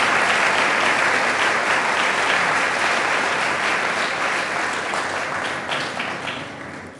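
Audience applauding, a dense sound of many hands clapping that fades out near the end.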